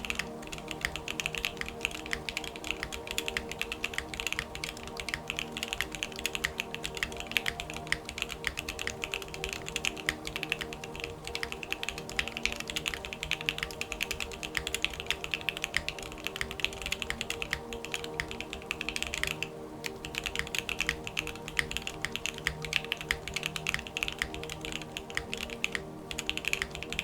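Fast continuous typing on a Geonworks F1 mechanical keyboard with JWK Alpaca linear switches: a dense run of clacky keystrokes, pausing briefly about two-thirds of the way through and again near the end.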